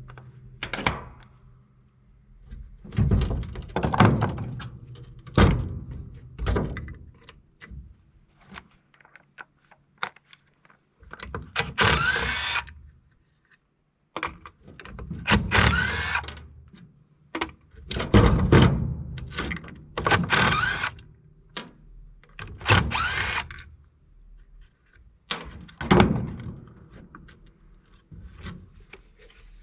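Metal-scrapping work on an air-conditioning unit: irregular knocks and thunks, broken by about four short bursts of a power tool, each a second or so long.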